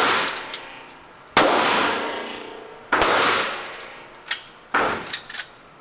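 Gunshots ringing through an indoor shooting range, each report trailing off in a long echo: two loud shots about a second and a half apart, then three quicker, fainter, shorter reports near the end.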